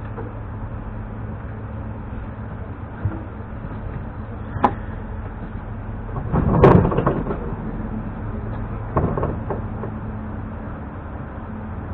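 Steady hum from an ES2G Lastochka electric train standing at a station, heard from inside the carriage. A sharp click comes about four and a half seconds in, a louder clatter lasting about a second follows near the middle, and a shorter one comes about nine seconds in.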